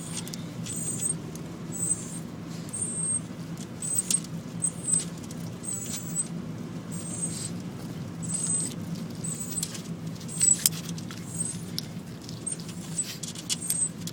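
Inside a moving car: a steady low engine and road hum, with short high-pitched squeaks repeating about once a second and scattered light ticks.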